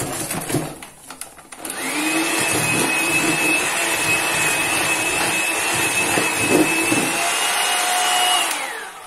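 Electric hand mixer beating a creamed ghee, sugar and egg mixture in a plastic bowl. Its motor rises to a steady high whine about two seconds in, then winds down with a falling pitch near the end as it is switched off.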